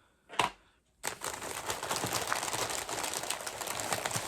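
Plastic mystery-pin packaging crinkling and rustling continuously as a pack is handled and opened, starting about a second in. Just before that there is a single brief sharp noise.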